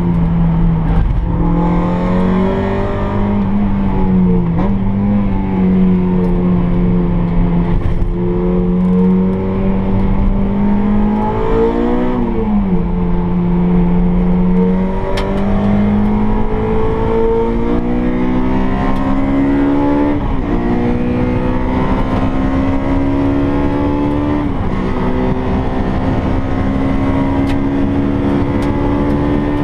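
Honda Integra Type R DC2's swapped-in K20 2.0-litre four-cylinder engine, heard from inside the cabin, pulling hard on track: its note climbs slowly under throttle and changes pitch abruptly several times at gear changes, with a quick rev blip and drop partway through.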